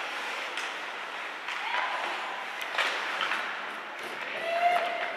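Ice hockey play in an arena: skates scraping the ice and sharp clacks of stick on puck, the loudest nearly three seconds in, over a crowd's steady noise and a few shouted voices.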